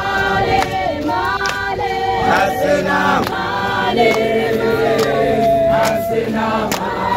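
A crowd of marchers singing together in chorus, many voices holding long, bending notes, with sharp short hits cutting through now and then.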